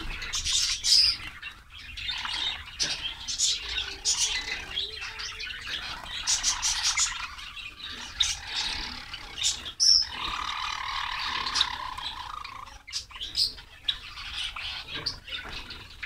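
A flock of white Java sparrows chirping busily and continuously, many short high chirps overlapping, with a longer held call about two-thirds of the way in.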